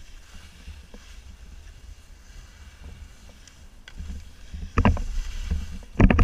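Wind buffeting an action camera's microphone while skiing downhill, with skis scraping over hard-packed snow. It gets louder about four seconds in, with sharp scrapes and knocks around five seconds and again near the end.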